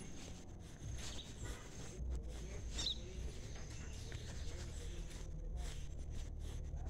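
Faint outdoor ambience: a low rumble on the microphone with scattered light clicks and knocks, and a single short high bird chirp about three seconds in.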